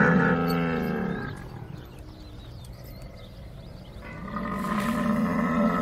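Camel calling: a long, low, drawn-out moan ends about a second in, and a second such call begins about four seconds in.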